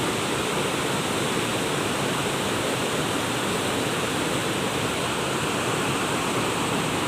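Waterfall: falling water rushing steadily at an even level.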